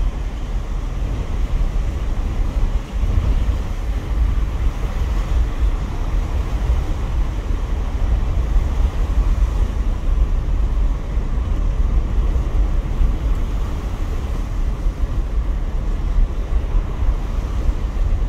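Strong hurricane wind, gusting at an estimated 40 to 50 mph, buffeting the microphone as a heavy low rumble that rises and falls, with choppy water in the background.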